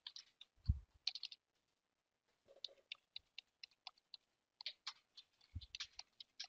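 Computer keyboard keys clicking in an irregular run as an address is typed, with a soft low thump about a second in and another near the end.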